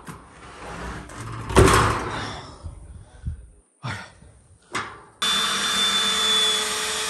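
A loud knock about one and a half seconds in, then a few clicks. Near the end, a handheld power tool runs steadily with a high whine for about three seconds and then winds down.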